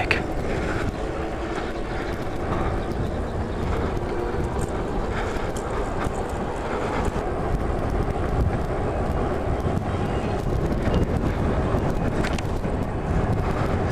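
Steady wind rushing over the microphone of a camera on a moving e-bike, with road noise from the ride.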